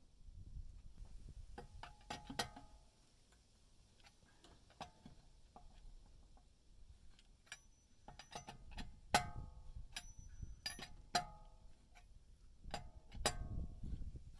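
Metal clinks of a four-way cross lug wrench being fitted onto and turned on a car's wheel nuts. Each clink rings briefly, with low scraping and handling sounds between them. The clinks are scattered and irregular, loudest around the middle and near the end.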